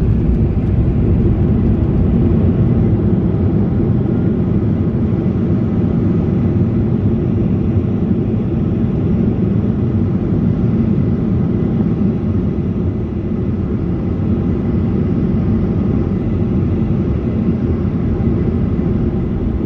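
Steady low rumble of a Boeing 737-800's engines and airflow heard inside the cabin during its arrival, dropping a little about thirteen seconds in.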